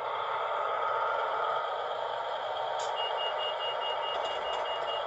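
Sound-fitted OO gauge Realtrack Class 156 model's onboard speaker playing a diesel multiple unit idling at the platform. A click comes at about three seconds, then a rapid high beeping, the door-closing alarm that comes before the unit departs.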